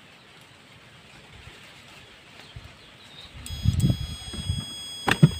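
Faint background hiss at first, then rustling and knocking as test leads and wires are handled. About three and a half seconds in, a steady high-pitched electronic beep comes in and holds, and two sharp clicks land close together near the end.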